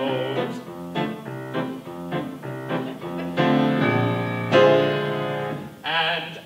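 Piano accompaniment for the show tune playing on its own between sung lines: a run of short chords, then longer held chords from about halfway through.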